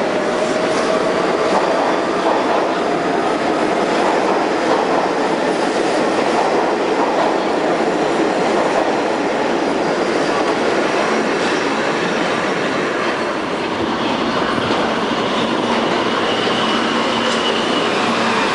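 Subway train running past alongside the platform: a loud, steady rush of steel wheels on rails with some rail-joint clatter. From about three quarters of the way through, a thin, high, steady wheel squeal joins in as another train comes in.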